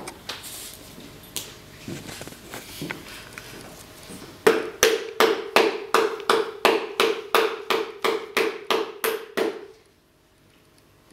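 A run of even, sharp taps or knocks, about three a second for some five seconds, over a steady ringing tone; it stops suddenly near the end. Before it, scattered light knocks and handling noises.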